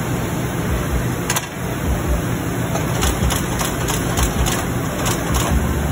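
Workshop machinery running with a steady low hum. From about halfway through, a regular clicking comes in at about three clicks a second.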